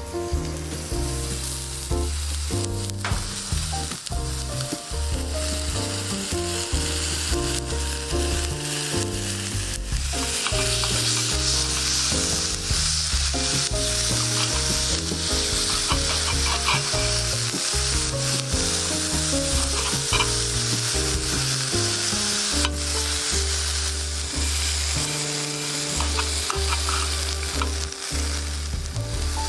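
Food frying in a hot pan, a steady sizzle.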